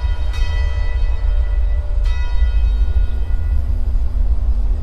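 Cinematic background music: a deep bass rumble under bell-like chimes that strike and ring out, one at the start, one about a third of a second in and another about two seconds in, with a low sustained note entering in the second half.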